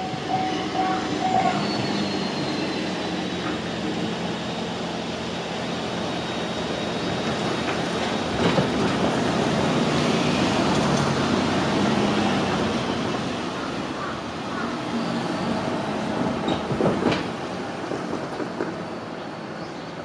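A Japanese railway crossing's warning bell cuts off about a second in. Then an electric train runs along the track beside the crossing: a steady rumble of wheels on rail that swells to its loudest about halfway and fades, with a couple of sharp clacks.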